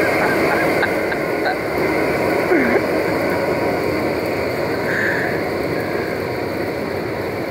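Helium venting through an MRI magnet's rooftop quench pipe during a quench: a steady, loud rushing hiss as the boiled-off liquid helium blasts out of the vent, easing slightly near the end.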